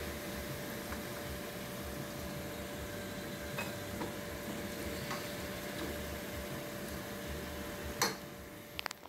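Diced potatoes sizzling in hot oil in a pot, a steady hiss, with a few light clicks of a plastic slotted spatula against the pot and one sharper knock near the end. The potatoes are golden and nearly done browning.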